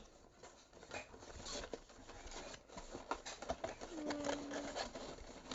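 Small clicks and rustles of product packaging being handled, with a brief steady hum-like tone about four seconds in.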